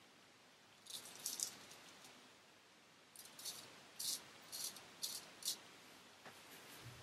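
Rosette Japanese straight razor shaving through lathered stubble in short scraping strokes: a few quick strokes about a second in, then about six more from three seconds on.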